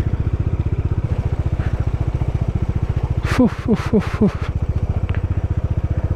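Bajaj Dominar 400's single-cylinder engine running with a steady, even beat while riding a rough off-road track. About halfway through, four short sounds falling in pitch come in quick succession over the engine.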